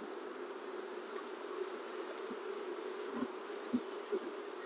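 Swarm of honey bees buzzing in a steady hum around an open wooden hive. About three seconds in, three light knocks come as frames are handled in the box.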